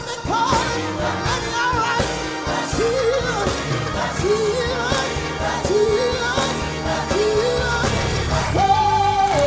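Gospel choir singing with a male lead vocalist on a handheld microphone, over instrumental backing with a steady beat. The same short phrase comes round about four times, then a long held higher note near the end.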